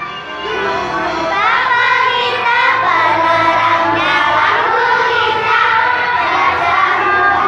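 A large crowd of schoolchildren singing and shouting together, many voices at once, loud throughout.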